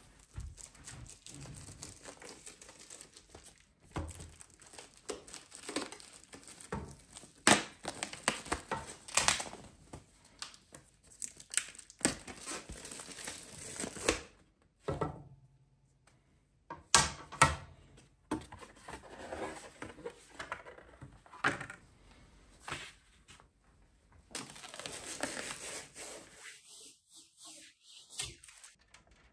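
Clear plastic protective film being pulled and peeled off a picture frame and its glass, crinkling and crackling in irregular bursts, with a brief pause about halfway through.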